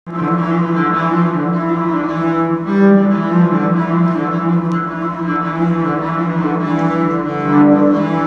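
Cello bowed live: long held notes, sometimes two at once, moving to new pitches a few times, once just under three seconds in and again near the end.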